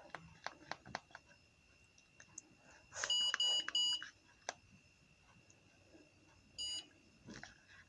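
Electronic beeps from a Contour blood glucose meter: three quick high-pitched beeps about three seconds in and one short beep near the end, with a few light clicks of handling before and between them.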